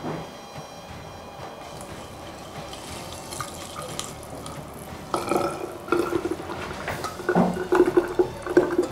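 Flan custard of milk and eggs poured from a steel pot through a fine mesh strainer into a glass jug, the stream splashing into the liquid gathering in the jug. The pouring grows louder about five seconds in.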